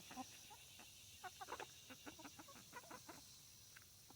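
Hens clucking softly in short, scattered calls, faint throughout.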